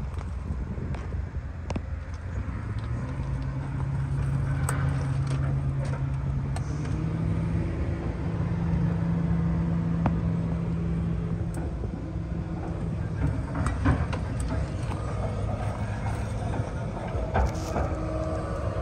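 A motor vehicle engine running, a low hum that steps up in pitch a few seconds in and eases back near the end, over a low rumble with a few small clicks and knocks.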